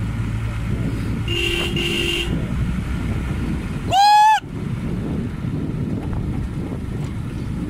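Jeep engine running steadily under the ride, with two short horn toots about a second and a half in. About four seconds in, a loud, short, high-pitched cry that rises and falls in pitch.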